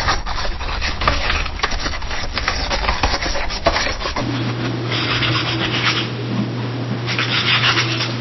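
Pencil writing on a wooden desk: quick scratchy strokes, then after about four seconds a different take with two longer passages of scribbling over a steady low hum.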